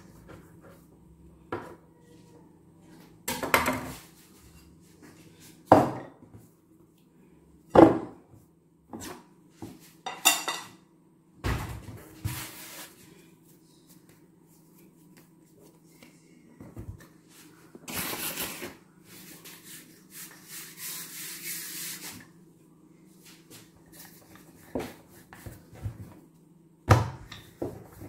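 Kitchen handling sounds: a string of separate knocks and clatters of utensils and containers on a worktop, with a longer stretch of rubbing past the middle, over a steady low hum.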